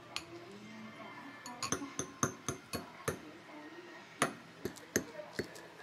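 Metal wire whisk clinking against a glass bowl as it chops through hard-boiled eggs: a string of irregular sharp taps that starts about a second and a half in, the loudest near the end.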